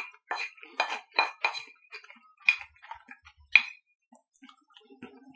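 Wooden spoon scraping and knocking against a ceramic plate while scooping up fried rice. A quick run of sharp clinks, each with a brief ring from the plate, comes in the first second and a half, then two more about a second apart, then it goes nearly quiet.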